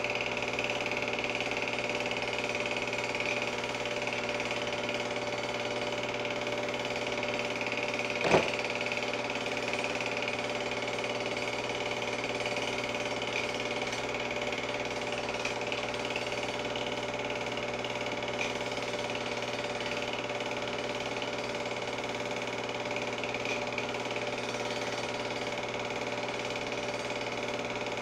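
Film projector running: a steady mechanical whir and clatter of its mechanism. One sharp click about eight seconds in.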